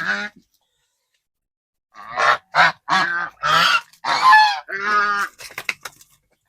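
Domestic goose honking: one short call, then after a pause a quick run of about six loud honks.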